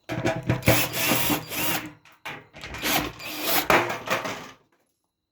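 A part taken off a Kenmore dryer rattling loosely in two long runs of clatter, the second ending a little over half a second before the close. The rattle is what the repairer identifies as the cause of the trouble.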